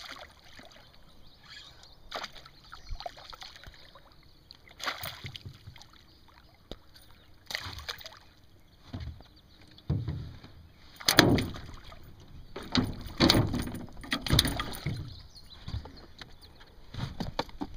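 Hooked northern pike thrashing and splashing at the water's surface beside an aluminum boat, in irregular bursts that are loudest a little after halfway.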